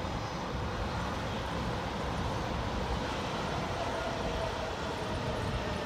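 Keihin-Tohoku Line E233-series electric train running into the station, a steady rumble with a faint whine about four seconds in.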